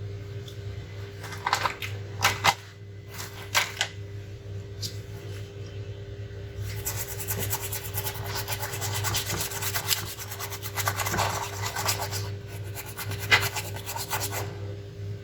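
A few sharp clicks, then about eight seconds of fast, even scratching strokes on a laptop motherboard, over a steady low electrical hum.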